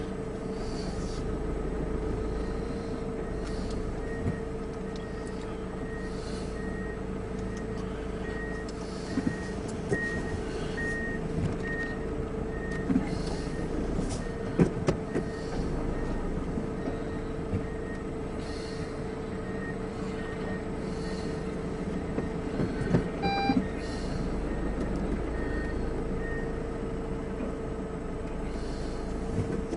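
Scania 164L heavy-haulage tractor unit, a 16-litre V8, running slowly with a steady drone as it pulls a long low-loader trailer past. A high warning beeper sounds about every two-thirds of a second through most of it, with a few sharp clanks from the rig.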